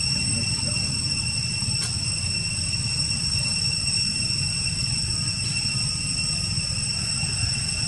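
Steady low rumble with a constant high-pitched whine over it, unchanging throughout.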